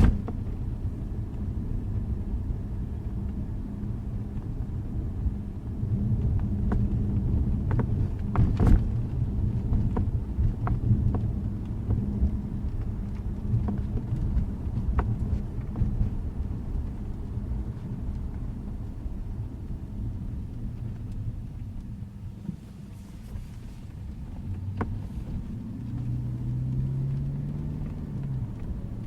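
2012 Jaguar XJ running with a steady low engine and road rumble, broken by scattered sharp pops and clicks: the popping noise the car still makes after a dealership repair. Near the end the engine pitch briefly rises and falls.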